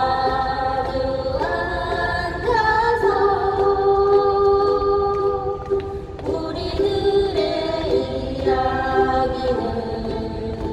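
A group of voices singing a slow Korean song in unison, holding long notes, over a ukulele ensemble's strumming.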